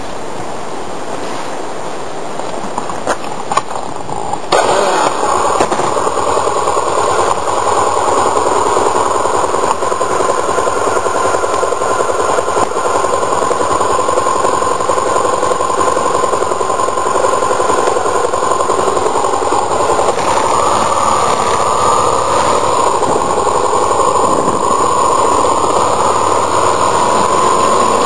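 Motorcycle recorded from a mirror-mounted camera: a steady hiss at first, then about four seconds in the sound jumps suddenly louder. From there the engine runs steadily with wind and road noise as the bike rides along.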